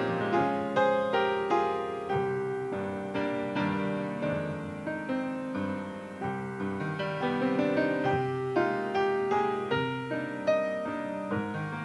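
Solo piano playing, notes and chords struck about every half second and left to ring out.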